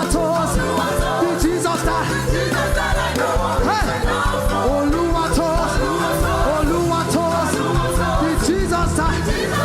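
Live gospel praise music: a band playing at a steady beat with singing voices gliding over it.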